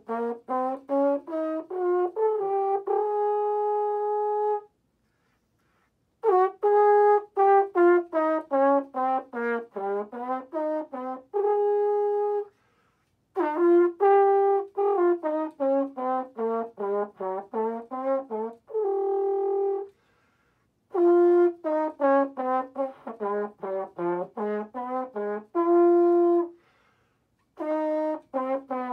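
Valve trombone playing an A-flat scale and chord etude: quick separately tongued notes running up and down in scale and arpeggio patterns, in four phrases that each end on a long held note, with short breaths between them and a new phrase starting near the end.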